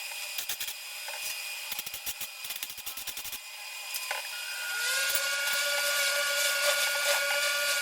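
Irregular crackling and clicks, then about four seconds in a handheld angle grinder spins up with a rising whine and runs freely at a steady high pitch.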